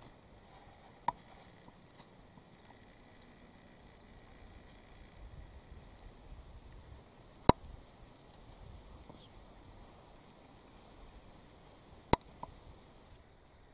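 Quiet woodland sound: faint rustling in dry leaves, scattered faint high chirps, and three sharp clicks or snaps, about a second in, midway and near the end.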